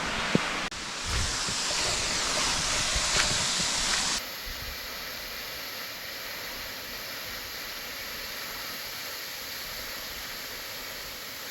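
Steady rushing of a waterfall, a hiss of falling water. About four seconds in it cuts abruptly to a quieter, steady hiss.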